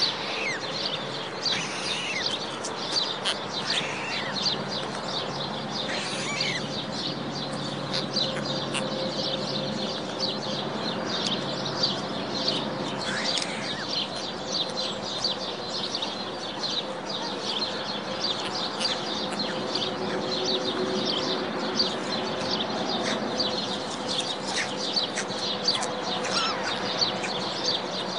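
White stork chicks yelling at the parent bird from the nest: a dense, steady run of short high calls with an occasional longer gliding call, over a faint steady electrical hum.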